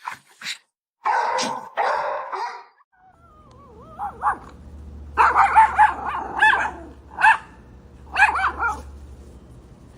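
A dog barking: a few short bursts, a pause, then a run of quick barks from about four seconds in.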